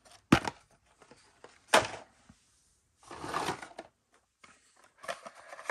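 Hot Wheels blister cards being handled: two sharp clicks of card and plastic packaging being set down, then a rustle of about a second as a stack of cards slides out of the cardboard case, with a few light ticks near the end.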